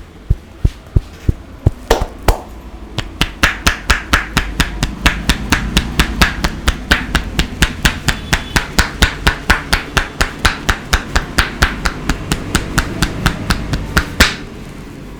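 Hand-percussion massage strokes: a barber's hands tapping and chopping rhythmically on a client's head. Dull thumps at first, then from about three seconds in sharper, brighter strikes at about four a second, ending with one louder slap near the end.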